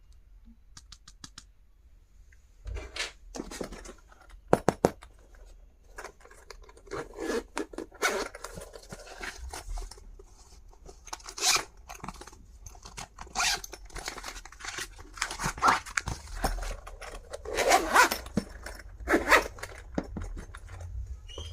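Packaging being handled and opened: irregular rustling, crinkling and tearing, with scattered sharp clicks and taps, after a quiet first couple of seconds.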